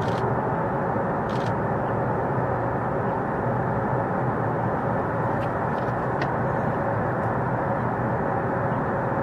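Several military jet engines running steadily in the distance as the jets taxi and line up on the runway, a continuous rumble with a faint steady hum through it.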